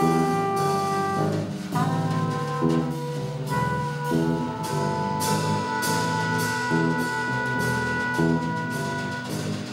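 Live ensemble music from a laptop orchestra with drum kit: long held high tones over a repeating lower figure, with short drum strikes. The held tones fall away just over a second in and a new set enters, and another held chord comes in about three and a half seconds in.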